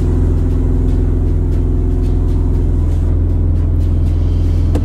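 BMW M4's twin-turbo straight-six running at a steady low rumble, heard from inside the cabin, with no revving.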